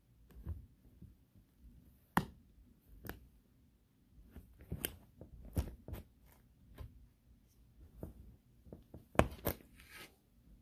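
Scattered soft knocks and scuffs of sneakers stepping on and off a wooden board on carpet, with the sharpest knock about nine seconds in.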